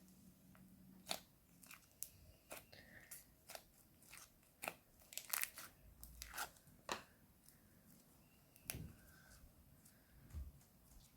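Crunchy slime being worked by hand, giving off irregular crackles and pops, densest in the middle.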